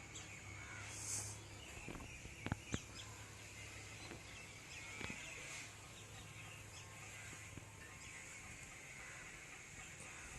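Faint outdoor ambience with scattered bird chirps and calls over a steady high hiss. A few sharp clicks come about two and a half seconds in and again near five seconds.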